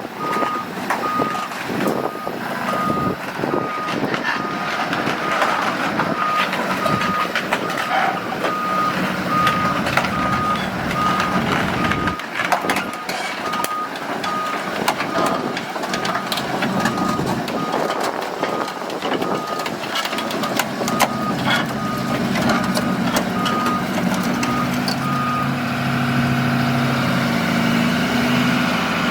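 Hyundai HX260L crawler excavator's travel alarm beeping at a steady, even pace over its running diesel engine, with frequent sharp clanks and rattles. The beeping stops near the end, leaving the engine running steadily.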